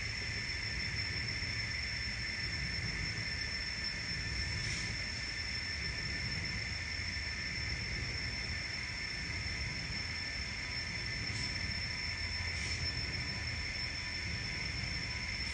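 N scale model coal train's hopper cars rolling along the track: a steady running rumble with a constant high whine, and a few faint clicks.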